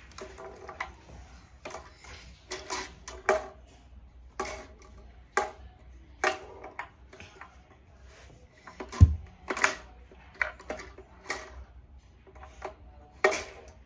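Plastic clicks and knocks of a LEGO-brick foosball table in play: the rods worked by hand and the players striking the ball against the brick walls, at irregular intervals. One heavier low thump comes about nine seconds in.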